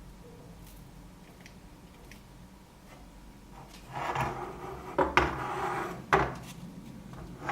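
Bench work on a circuit board: scraping and rubbing against a hard surface with a few sharp clicks. It starts about halfway through and comes again near the end.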